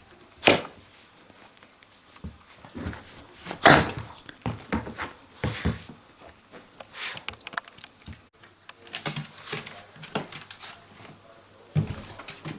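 A Shih Tzu's paws and claws tapping and scrabbling on wooden stairs, in irregular taps and knocks with rustling between them; two louder knocks come about half a second and nearly four seconds in.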